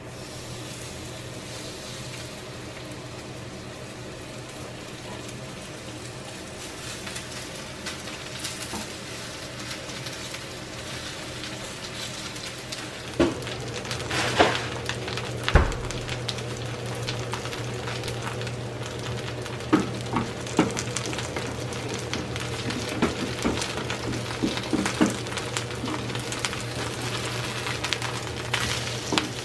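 Chamnamul-and-shrimp pancake batter frying in hot oil in a pan: a steady sizzle that grows louder about halfway through. Cooking utensils click, knock and scrape against the pan, with a dull thump around the middle and frequent small taps near the end as the pancake is spread out.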